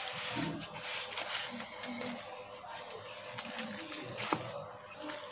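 Rustling and crinkling of art-supply packaging being handled: a cloth pencil roll case folded up, then the clear plastic wrap on a spiral sketch pad crackling under the fingers, in short uneven bursts.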